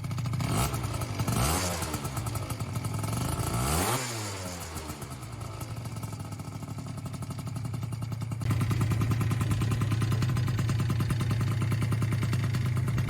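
Yamaha Booster two-stroke scooter engine with a 70cc kit running: blipped up and down a couple of times in the first four seconds, then idling steadily, louder from about eight and a half seconds in.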